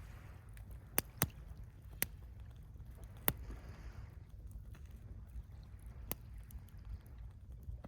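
Beach bonfire crackling, with five sharp pops of burning wood in the first six seconds, over a steady low rumble of surf and wind.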